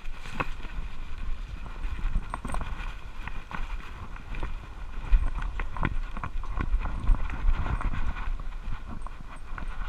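Dog's claws clicking irregularly on a hard tile floor as it walks, over the low rumble and bumping of a camera strapped to its body.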